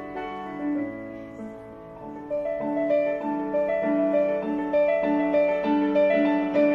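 Piano music playing from a Sabala DR-104 portable Bluetooth speaker, softer for a moment about a second in, then picking up again with a lively run of notes.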